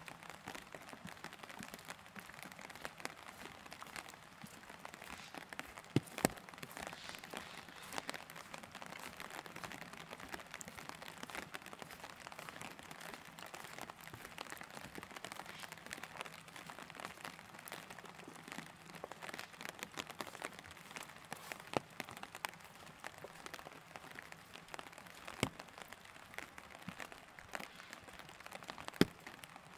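Light rain falling steadily, a soft pattering hiss full of small drop ticks, with a few sharper, louder drop hits about six seconds in, near the three-quarter mark and near the end.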